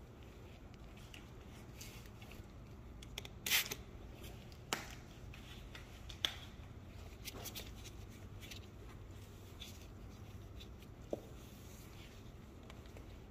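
A few sharp light knocks and clicks over a faint low hum and light rustling, the loudest about three and a half seconds in and the last near the end.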